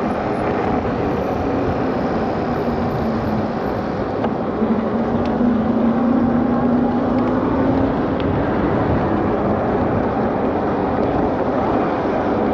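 Wind rushing over the microphone and road noise of an electric bike riding at speed. A low hum swells and rises slightly from about four seconds in.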